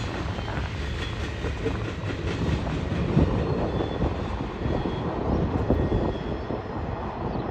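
Freight train rolling past: a steady low rumble of steel wheels on the rails, with wheels clicking over rail joints in the first second or two.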